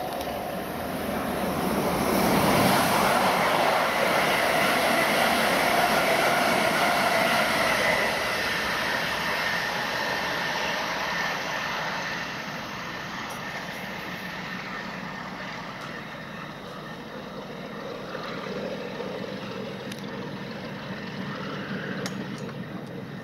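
Railway noise from trains running through a station: a rumble of wheels on rail that swells about two seconds in, stays loud for several seconds, then fades slowly.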